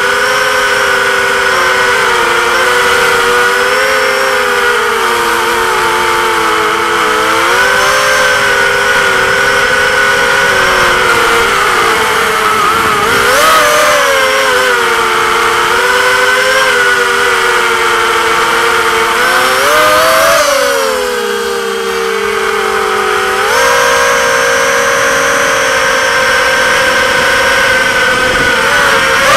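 Brushless motors and propellers of an XHover MXP230 racing quadcopter, heard close up from its onboard camera, whining steadily with the pitch wavering up and down with throttle. About two-thirds through the whine rises, then sags lower and quieter for a couple of seconds before climbing back.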